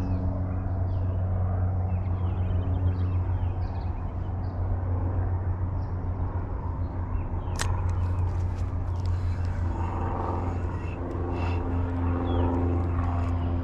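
Steady low mechanical hum, like a running engine, holding several pitched tones. Faint high chirps come over it in the first few seconds, and there is one sharp click about seven and a half seconds in.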